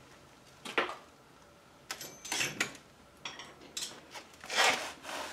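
Small metal parts and a screwdriver being handled: a scattering of light metallic clinks and short rattles, the longest about four and a half seconds in.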